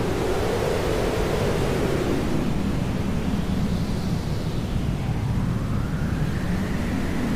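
Hair dryer running steadily as white noise: an even, full-range hiss whose tone slowly drifts up and down over a few seconds.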